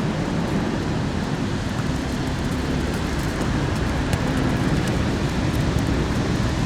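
Steady wind buffeting the microphone, a rumbling noise with no pitch to it, with a faint knock about four seconds in.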